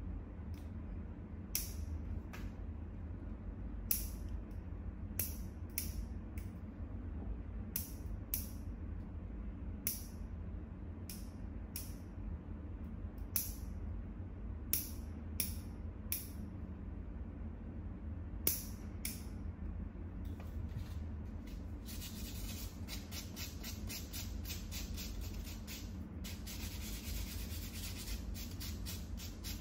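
Toenail clippers snipping toenails: sharp, separate clicks about once a second. About two-thirds of the way in, a nail buffer block starts rubbing rapidly back and forth across the toenails with a dry rasping.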